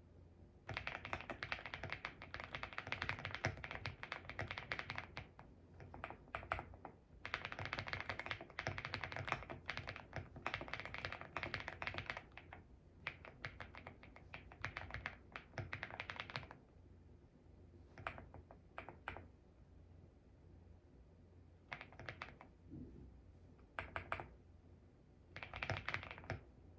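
Typing on an EPOMAKER GALAXY70 aluminium mechanical keyboard with HUANO Blossom Odyssey switches: three long runs of fast keystrokes, then a few short bursts of keys with pauses between them.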